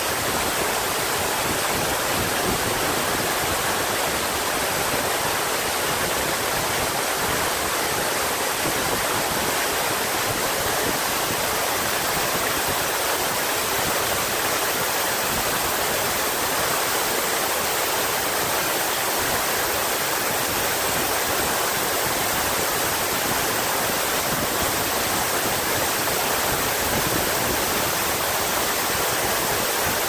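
Steady, unbroken rush of water from the falls and streams around Chōon Falls.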